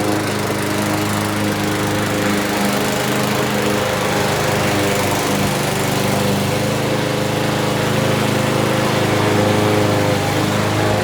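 Craftsman M210 self-propelled push mower's small engine running steadily, its pitch shifting a little over a few seconds.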